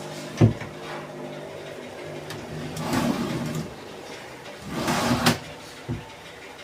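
Wooden cabinet drawers and shutters being slid and shut. A sharp thump comes about half a second in, then two longer sliding sounds near three and five seconds, the second ending in a knock, and one more short knock just before the end.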